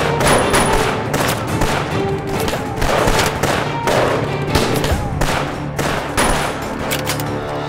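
Gunfight: a rapid, unbroken string of rifle and pistol shots from both sides, over dramatic background music.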